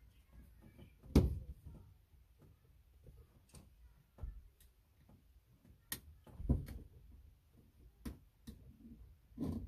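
Scattered clicks and a few dull thumps from a razor blade and hands working along the top of a VW Bus windshield's rubber seal, cutting it free of the glass. The loudest thump comes about a second in, with others about halfway and near the end.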